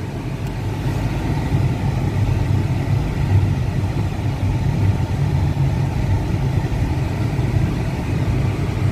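Car engine and tyre noise heard from inside the cabin while driving: a steady low drone.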